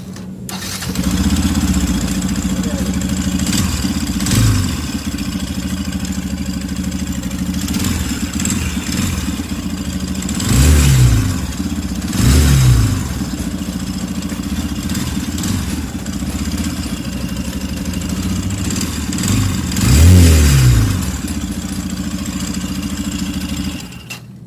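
Yamaha FZ V3 motorcycle's single-cylinder engine idling, blipped a few times with short revs, then cut off near the end. The running noise is what the workshop puts down to a clutch housing problem.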